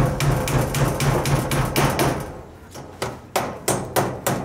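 Hammer blows fastening a perforated metal screen panel onto wooden porch framing: a quick run of strikes, about five a second, then after a pause of about a second, slower single blows near the end.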